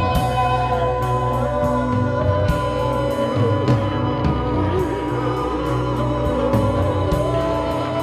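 Background soundtrack music: a wavering sung melody over sustained tones and a steady low bass, with regular sharp percussive clicks.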